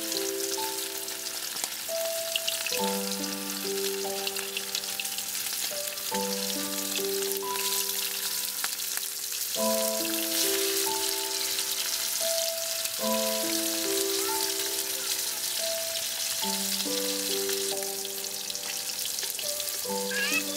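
Food sizzling and crackling as it fries in hot oil in a pan. Gentle background music plays over it, a short melody repeating every few seconds.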